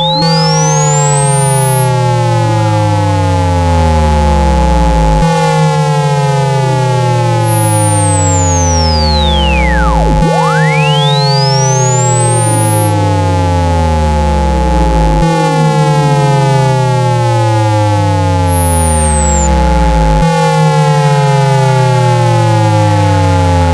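Electronic phone-speaker water-ejection tone: steady low and mid hums under sweeping tones that fall in pitch and restart about every five seconds, with a high whistle gliding up and back down. The tone is meant to make the phone's speaker vibrate water out of its grille.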